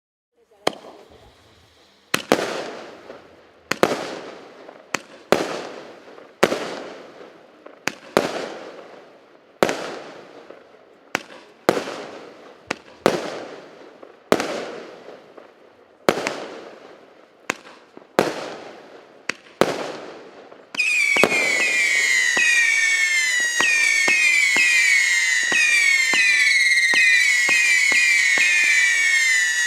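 A 0.8-inch, 169-shot fireworks cake battery (Russkiy Feyerverk "Assorti-salut" RS668) firing. It fires single shots about once a second, each a sharp bang that dies away over about a second. About twenty seconds in it switches to a dense volley of whistling shots, many falling whistles overlapping, which stops suddenly near the end.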